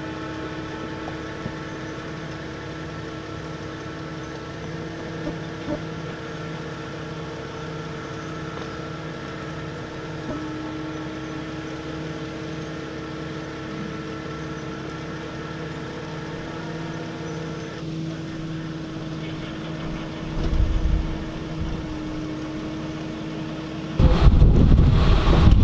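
A vehicle engine running steadily with a constant hum and an even low pulse. About a second before the end, wind buffets the microphone loudly and covers it.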